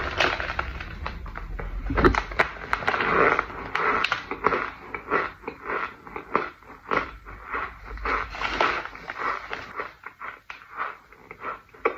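Loose scented powder squeezed and crunched in gloved hands, giving a dense run of irregular soft crunches and squeaks.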